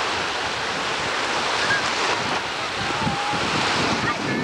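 Steady wind noise buffeting the camcorder microphone over choppy, whitecapped lake waves washing in.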